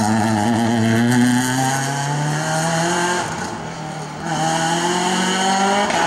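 Citroën Saxo rally car's four-cylinder engine revving hard as it accelerates away, its pitch climbing. Just past the middle the sound drops away for under a second, then the engine climbs in pitch again.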